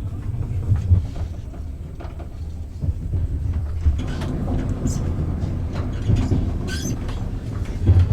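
Moving passenger train heard from inside the carriage: a steady low rumble with scattered clicks and rattles.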